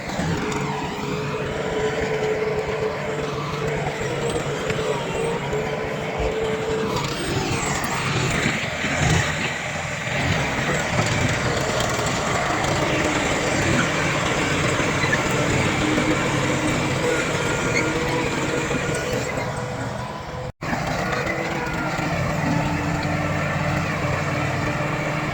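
Heavy diesel earthmoving machinery running and working, a continuous engine drone whose pitch rises and falls in places. It breaks off for an instant about twenty seconds in.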